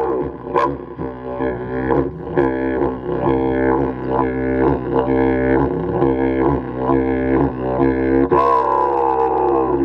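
Didgeridoo playing a steady drone with a rhythmic pulsing pattern, about two beats a second. About eight seconds in it breaks into a higher call that falls in pitch.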